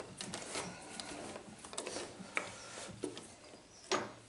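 A three-jaw lathe chuck being gripped and turned by hand on the spindle nose: light metal rubbing with scattered small clicks and knocks, and a sharper knock shortly before the end.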